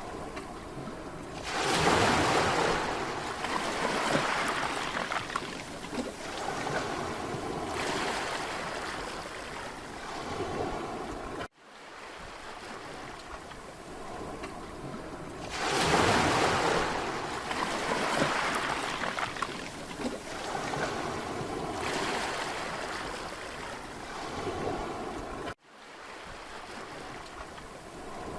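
Sea waves breaking and washing up on a beach, swelling and easing every few seconds. Twice the sound cuts out for an instant, about 11 seconds in and near the end.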